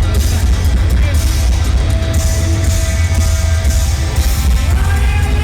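Live heavy metal band playing at full volume, as recorded by a phone in the crowd: distorted electric guitars, bass and pounding drums, with a held vocal or guitar line near the end.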